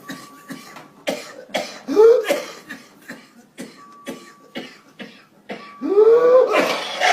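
A person coughing in a fit of short, sharp, rapid coughs, twice broken by a long voiced sound rising in pitch, once about two seconds in and once near the end.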